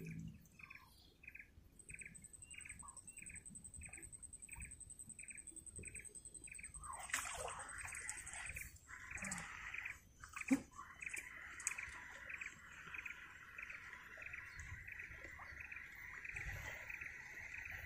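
Faint swamp-forest ambience: a bird repeating a short note about twice a second, over a thin high insect whine. About seven seconds in, a steady insect buzz takes over and runs on, with a couple of soft knocks around ten seconds in.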